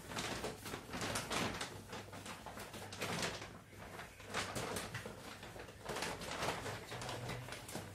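Irregular scraping, sliding and clicking of plastic parts being handled and pried while a split air conditioner's indoor unit is taken apart.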